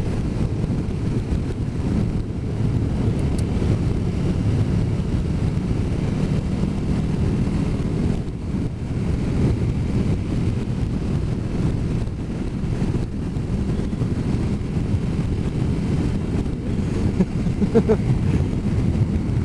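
Motorcycle under way at steady speed: wind rushing over the microphone with the engine and road noise running beneath.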